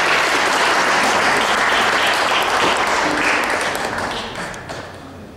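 Audience applauding, the clapping steady and then dying away about four to five seconds in.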